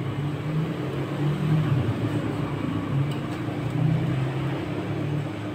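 Ice cream roll machine's refrigeration unit humming steadily under its chilled steel plate, with metal spatulas scraping frozen ice cream into rolls across the plate.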